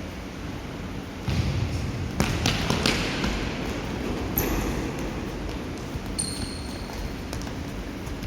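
Indoor futsal play: a ball being kicked and bouncing on a hard court, with several sharp thuds a couple of seconds in. Sneakers squeak briefly on the court floor twice, around the middle.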